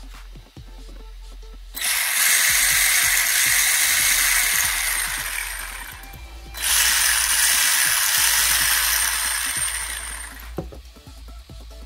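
Brushless motor and four-wheel-drive gear train of an HSP 94123PRO 1:10 RC drift car spinning up with its wheels in the air, given throttle twice. Each run starts abruptly and dies away over a few seconds.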